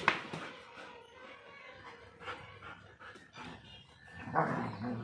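Dogs, a German shepherd and a black Labrador, barking as they attack a stuffed toy tiger. There is a sharp bark at the start and another burst about four and a half seconds in.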